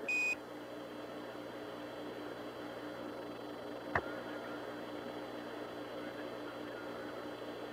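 Apollo 11 air-to-ground radio channel open between transmissions: steady static hiss with a faint hum. It opens with a short high beep, the Quindar tone that keys off a Mission Control transmission, and has a single click about four seconds in.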